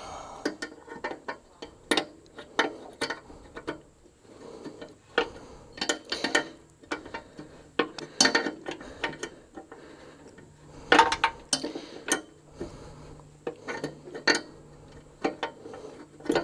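Hand tools clicking and tapping on metal while air fittings are tightened onto a truck's air-suspension valve, in irregular clusters of short clicks and ratchet-like ticks.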